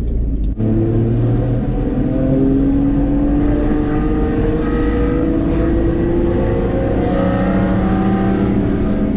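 Single-turbo 1JZ 2.5-litre straight-six with a special aftermarket exhaust, heard from inside the cabin while driving. There is a short break in the sound at a gear change about half a second in. The engine then pulls with the revs climbing gently for several seconds, and the pitch drops again about seven seconds in.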